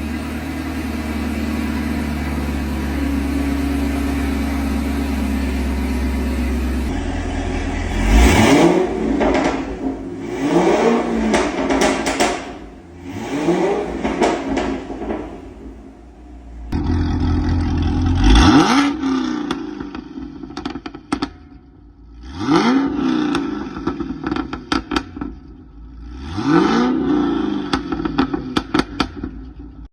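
2015 Camaro ZL1's supercharged 6.2-litre LSA V8, breathing through 2-inch Kooks long-tube headers and a Corsa exhaust, idles steadily for about seven seconds. It is then blipped about six times, and each rev falls away into a run of crackles and pops from the exhaust.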